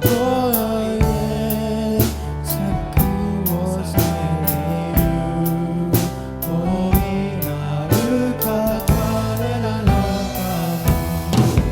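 Christian worship song performed by a band: singing over a drum kit with regular beats and a steady bass line.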